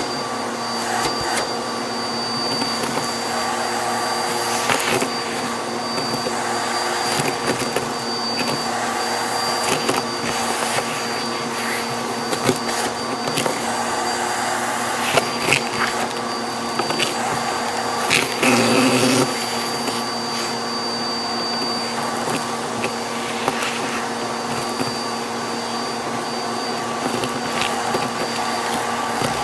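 Vacuum cleaner running steadily with a high whine, its hose and crevice tool sucking loose debris off a dust tray. Scattered clicks and rattles come as bits are pulled up the hose, and there is a brief louder rush about two-thirds of the way through.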